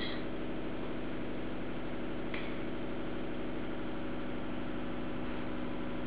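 A steady, unchanging hum with hiss, with a faint tick about two seconds in.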